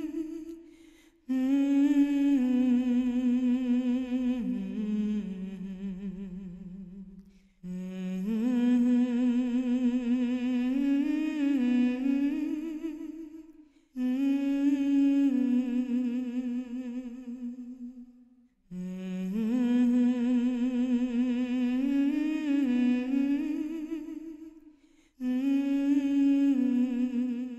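A lone voice humming a slow, wordless melody with vibrato, in long phrases of about five to six seconds that each fade away before a short breath-like pause.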